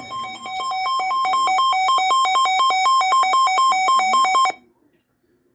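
Weather radio receiver's alert alarm: a loud, rapid beeping that alternates between two pitches and cuts off suddenly about four and a half seconds in. It signals an incoming warning broadcast.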